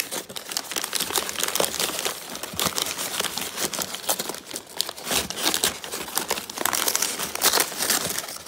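Tissue paper and clear plastic packing wrap crinkling and rustling without a break as a hand rummages through a packed shipping box and unwraps an item.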